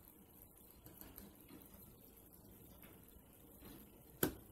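Faint chewing and mouth sounds of someone eating a yogurt parfait off a spoon, with one sharp click near the end.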